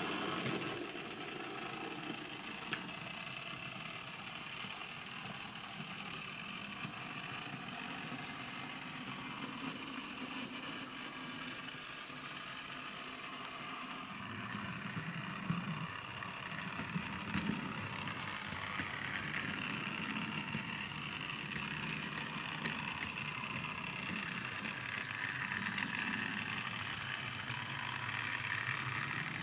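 Motorised 00-scale model tram running on its track, its small electric pmt motor drive whirring steadily, with a rumble that grows from about halfway through and a few sharp clicks from the wheels on the track.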